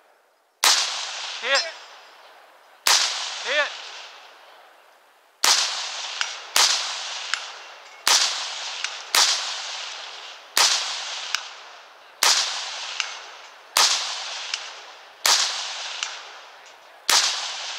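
Rifle fired one shot at a time, about eleven shots one to two and a half seconds apart, each echoing away slowly. A faint sharp ping follows most shots a moment later: the bullets striking distant steel targets.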